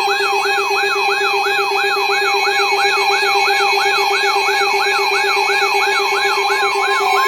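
Electronic siren-style alert tone: a rapid rising-and-falling yelp, about three sweeps a second, layered over steady electronic tones and a faster, higher warble.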